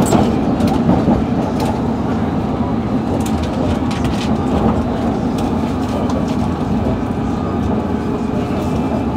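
London Underground Metropolitan line train running between stations, heard from inside the carriage: a steady rumble of wheels on rail, with scattered sharp clicks.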